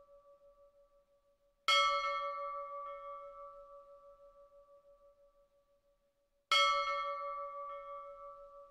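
A bell struck twice, about five seconds apart. Each stroke rings out long, with a slow, pulsing fade, and the ring of a stroke just before is still dying away at the start.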